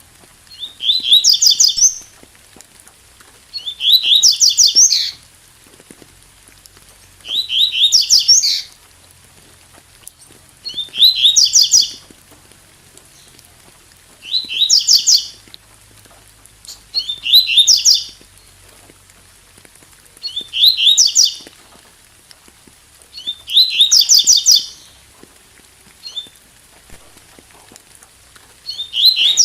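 Double-collared seedeater (coleiro) singing its 'tui tui' song: a short, bright phrase of rapid chirps, repeated about every three to four seconds, with a faint steady hiss underneath.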